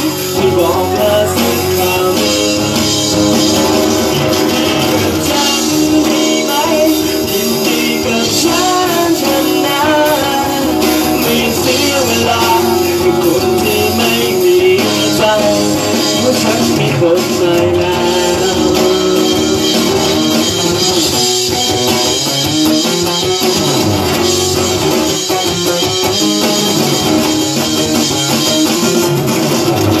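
A small live band playing a song: a voice singing over guitar and keyboard.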